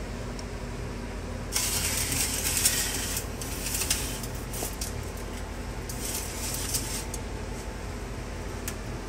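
An aluminium foil pan and a wire oven rack are handled as the pan goes into an oven. There is a burst of crinkling and scraping about a second and a half in, then scattered light metallic clicks and rattles, over a steady low hum.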